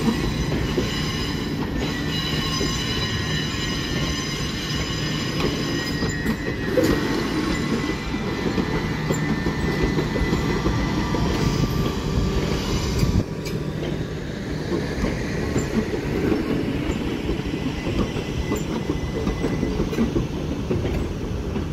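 Southeastern electric multiple unit rolling slowly past, with a steady low rumble and motor hum. Its wheels squeal in several high tones for the first six seconds or so, then the squeal fades while the rumble carries on.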